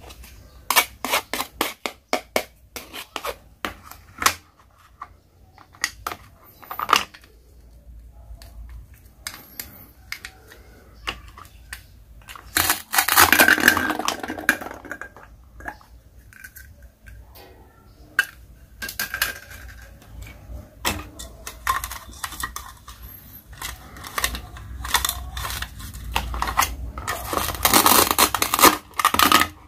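Plastic toy food clicking and tapping against a plastic cutting board under a plastic toy knife, with rasping tears as the Velcro-joined pieces are pulled apart, loudest about 13 seconds in and again near the end.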